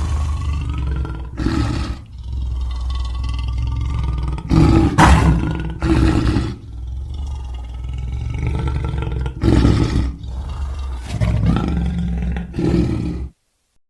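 Lion roaring-and-growling sound effect: a continuous deep, rumbling growl broken by several louder roars. It cuts off suddenly near the end.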